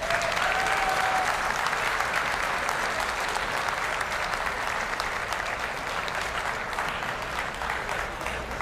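Arena audience applauding as a dog is gaited around the show ring: dense clapping that starts at once and slowly tapers off. A short held call rises above the clapping in the first second or so.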